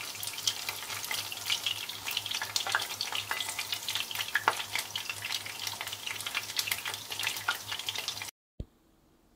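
Chicken karaage shallow-frying in hot oil in a pan, the oil sizzling with a steady, dense crackle of small pops as the pieces are turned and lifted out. The sound cuts off abruptly a little past eight seconds in.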